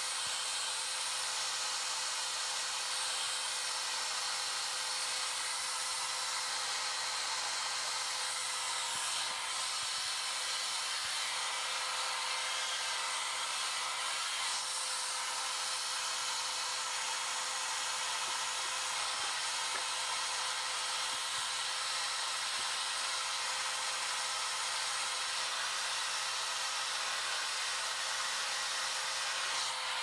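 Blow dryer running steadily on its cool setting: a continuous airy hiss with a faint steady hum under it.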